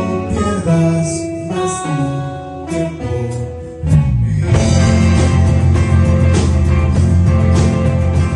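Music: sustained instrumental notes, getting fuller and louder about four seconds in, with a low bass part underneath.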